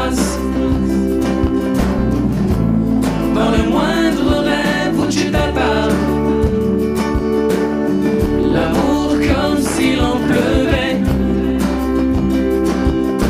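A pop love song: a male voice singing drawn-out, wavering lines over strummed acoustic guitar, with a bass line and light percussion underneath.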